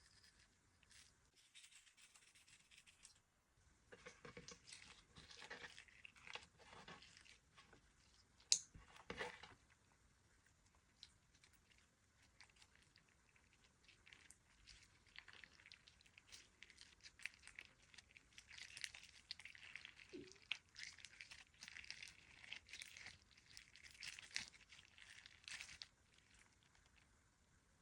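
Clear slime being handled and squeezed, giving soft sticky crackles and clicks in bursts, with one sharp click about eight and a half seconds in.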